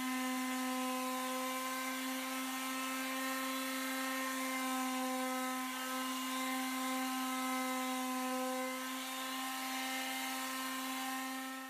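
Handheld electric detail sander running at a steady speed with a constant motor hum, sanding wooden cabinet face frames with fine-grit paper.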